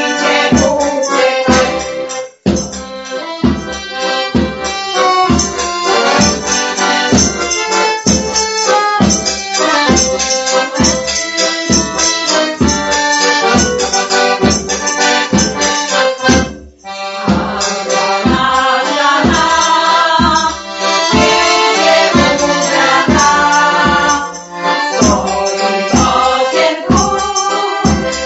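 Accordion playing a folk tune over a steady beat. It breaks off briefly twice, about two and a half seconds in and again just past halfway.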